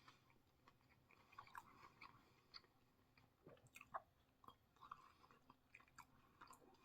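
Faint, irregular chewing of a crispy fried chicken sandwich, with small wet clicks and soft crunches.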